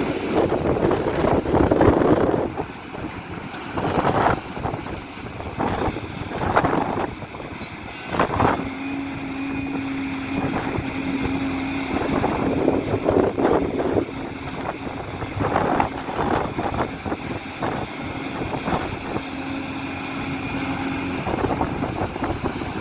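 Hidromek 500LC 50-tonne excavator at work, its engine running under load while the bucket scrapes and clatters through stony ground again and again. A steady whine runs through the middle stretch.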